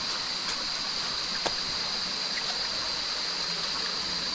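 Small forest stream running and trickling steadily over rocks, with a steady high-pitched tone above it.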